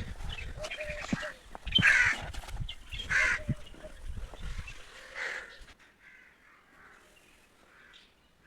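Two harsh animal calls, like crows cawing, about a second apart over a low rumble. The rumble dies away about six seconds in, leaving it quiet.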